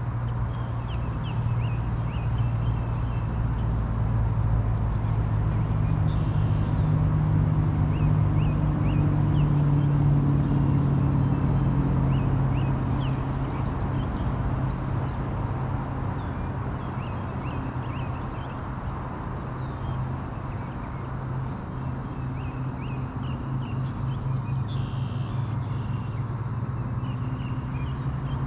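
A motor engine running steadily, growing louder for several seconds and then easing off, with short high bird chirps over it.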